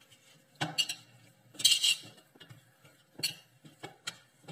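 Samosa dough being kneaded by hand in a stainless steel bowl: irregular clinks and knocks of the steel bowl as the dough is pressed and pushed, the loudest a short cluster about one and a half seconds in.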